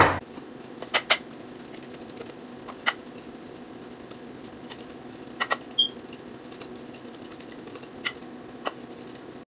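Scattered light clicks and taps of a kitchen utensil against a mixing bowl and baking pan as brownie batter is moved into the pan, over a steady low hum.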